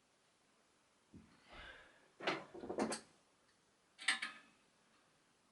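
Handling noises from bike parts and tools on a workbench: a dull knock about a second in, a few sharp clicks and clunks about two seconds in, and one more sharp click about four seconds in.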